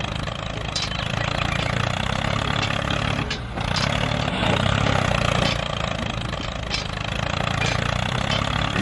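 A tractor engine running steadily, with a brief dip in level about three and a half seconds in.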